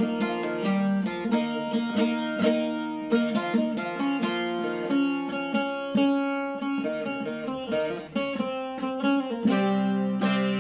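Bağlama (saz) played slowly: a single-line Turkish folk melody plucked note by note, with an open string ringing low and steady underneath.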